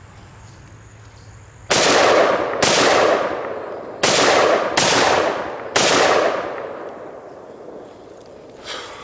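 Five shots from an ATI AR-15 pistol, fired singly at an uneven pace. Each shot has a long echoing tail.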